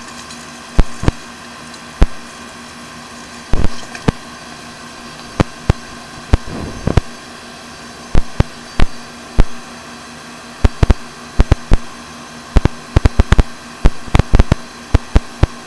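Sewer inspection camera rig being fed into a drain line: irregular sharp knocks and clicks from the push cable and camera, over a steady electrical hiss.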